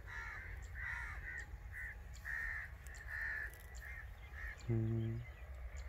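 Crows cawing, a string of short repeated caws over the first four seconds or so. Near the end comes a brief low hum from a man's voice.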